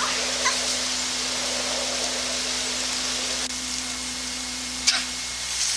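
Steady hiss with a low hum, and a few faint clicks, the sharpest about five seconds in.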